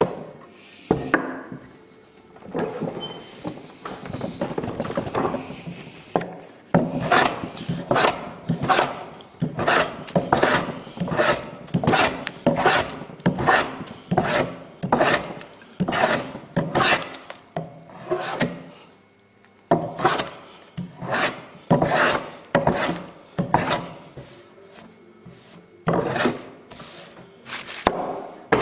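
Wooden-bodied hand plane shaving a square timber blank in repeated strokes, about one to two a second, each a hissing scrape of the blade through the wood. The strokes begin about seven seconds in, after a few seconds of quieter handling of the wood.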